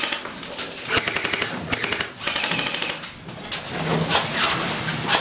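Airsoft guns firing in short full-auto bursts, a rapid rattle of shots, broken by scattered sharp single cracks and knocks.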